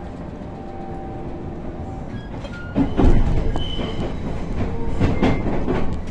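Train wheels running over points as the train crosses from one track to another, heard from inside the train. Steady running noise turns louder about three seconds in, with a series of heavy clunks and a few brief squeals of the wheels through the turnout.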